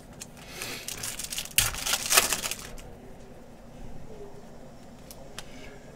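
Glossy basketball trading cards being slid and flipped against one another by hand as a stack is sorted through. A dry shuffling rustle runs for the first few seconds, loudest around two seconds in, then a few faint clicks.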